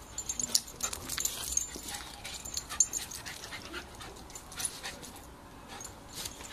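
Terriers making small whimpering and yipping sounds, mixed with a run of sharp clicks and knocks that come thickest in the first few seconds and again near the end.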